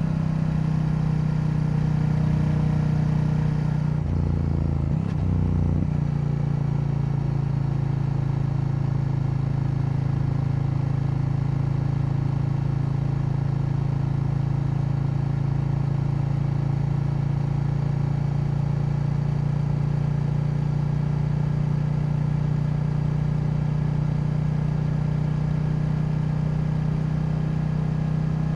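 KTM 890 Duke's parallel-twin engine running at steady revs on the move. The note briefly dips and changes about four to six seconds in, then holds constant.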